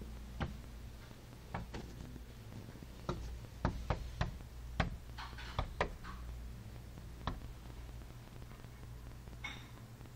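Campo flicker tapping its bill on window glass: a dozen or so sharp knocks at irregular intervals, some in quick pairs.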